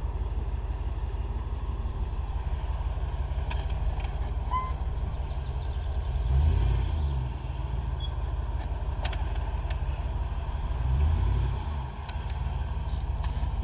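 Off-road vehicle's engine running at low revs, swelling louder twice, about six and eleven seconds in.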